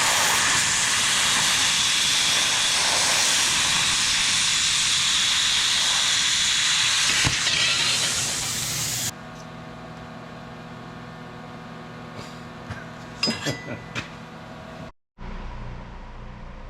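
Welding arc hissing steadily for about nine seconds, then cutting off abruptly. A quieter steady mechanical hum with a few light clinks follows, broken by a brief dropout.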